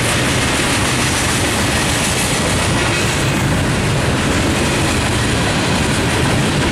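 Freight train of boxcars and hoppers rolling past, its steel wheels running on the rails in a loud, steady clatter.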